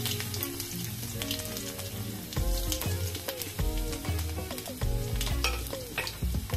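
Chopped garlic sizzling in a little hot oil in a steel kadai during a tempering, with sharp crackles and pops from spluttering mustard seeds, over background music.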